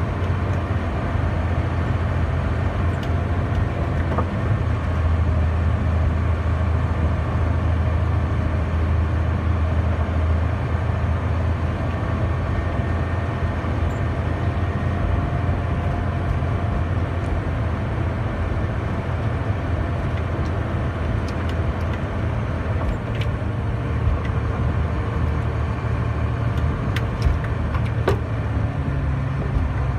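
Diesel engine of a tractor-trailer truck running steadily at low speed, heard from inside the cab as a constant low drone. A few light knocks and rattles come in the second half as the truck crosses rutted ground.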